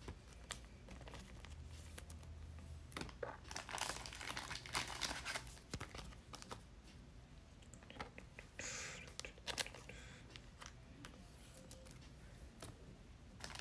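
Faint plastic rustling and small clicks of baseball cards being slid into soft penny sleeves and rigid plastic toploaders, with a longer crinkle about nine seconds in.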